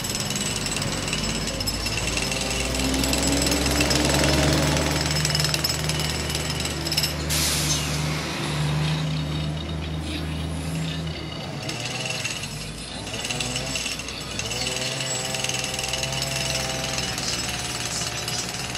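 Pneumatic jackhammer hammering continuously, breaking up road pavement for a new water main. Heavy diesel engines of buses and backhoes run underneath, louder for a while in the first half.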